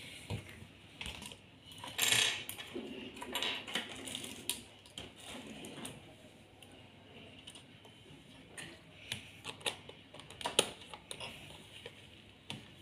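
Plastic slime jars and small plastic toy figures being handled and set down on a granite countertop: scattered clicks and knocks, the loudest about two seconds in and again near ten seconds.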